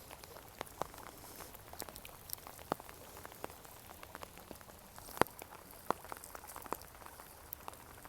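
Light rain: scattered, irregular raindrop ticks over a faint steady hiss.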